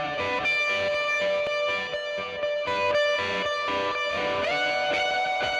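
Background music: an electric guitar playing a steady rhythmic pattern.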